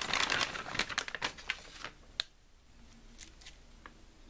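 Metallized anti-static plastic bag crinkling and crackling as a graphics card is pulled out of it. After about two seconds it dies down to a few light clicks of handling.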